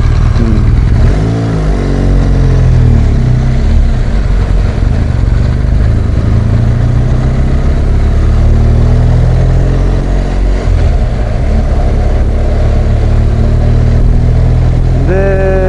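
BMW R1200GS boxer-twin engine running under way on the road, with a steady low rumble. The engine note rises and falls with throttle and gear changes.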